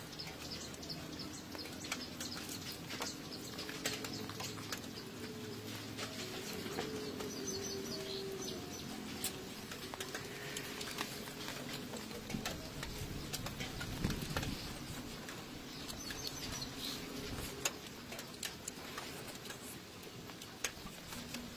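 Scattered small clicks and crackles from hands tearing apart a sesame-crusted fried chicken and from chewing, over outdoor ambience with a few bird chirps.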